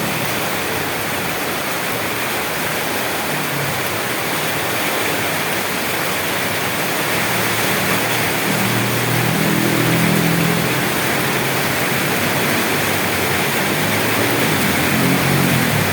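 Steady rain falling, an even hiss. A faint low hum swells up under it about halfway through and again near the end.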